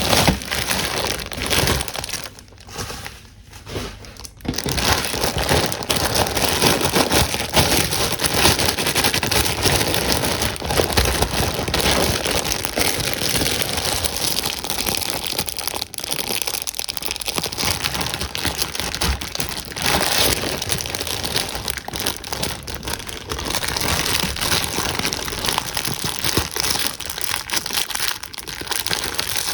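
Packaging crinkling and crackling continuously as it is handled and unwrapped, with a short quieter pause a few seconds in.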